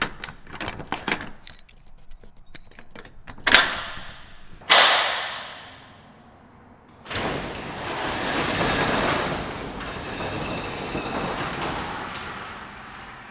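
Metal barn door being handled and slid open: a run of sharp clicks, two loud metallic bangs that ring on, then about five seconds of rolling, rattling noise as the door runs along its track, fading near the end.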